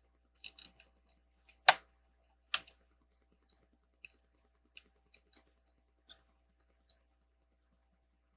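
Small plastic Lego pieces clicking and tapping as they are handled: a few sharp clicks in the first three seconds, the loudest about a second and a half in, then scattered light ticks.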